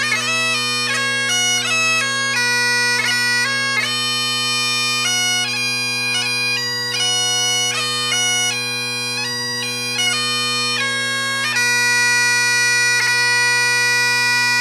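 Duncan MacRae SL10 Great Highland bagpipe playing a 4/4 march: steady drones under the chanter melody, which moves through quick notes with grace notes and settles on one long held note for the last few seconds.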